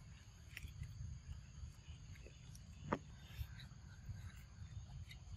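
Faint outdoor ambience: a steady low rumble with scattered small clicks and ticks, and one sharp click about three seconds in.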